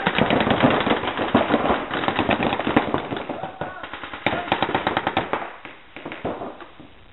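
Reball markers firing rapid strings of shots, a dense rattle of pops that thins out about five and a half seconds in and dies away near the end.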